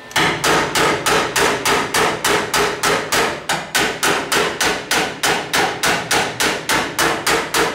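A small wooden-handled hammer peening the fresh weld seam on a 1961 Chevy C10's sheet-steel cab corner, in quick, even blows of about four a second, each with a short metallic ring. The peening works out the hump left where the weld shrank the panel. The hammering starts abruptly and stops just before the end.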